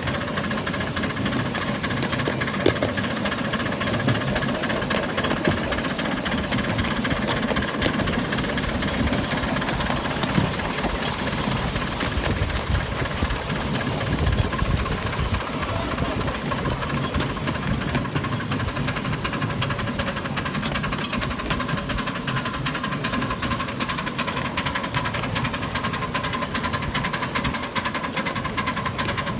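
Miniature steam locomotive running under way, its exhaust beating in a fast, even rhythm with the clatter of its wheels on the track.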